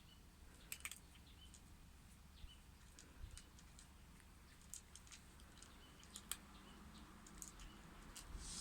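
Small pet rodent crunching hard food, faint irregular crisp crunches a second or so apart.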